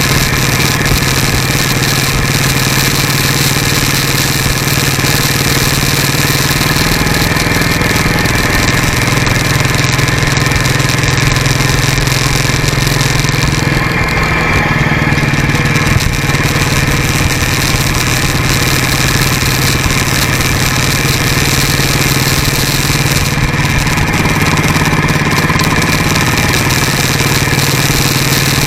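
Motorcycle engine running steadily while riding, picked up by a camera mounted low by the front wheel, under a constant rush of wind and road noise. The engine note shifts slightly in pitch a couple of times.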